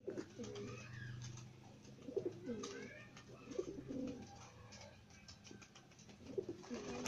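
Domestic pigeons cooing faintly, with several short calls spread through.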